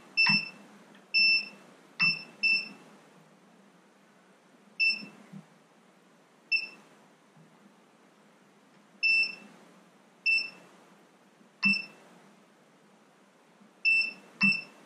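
Multimeter continuity beeper giving about eleven short, high-pitched beeps at irregular intervals, each opening with a light click, as the outboard's throttle and spark-advance linkage is worked back and forth and the contact closes and opens.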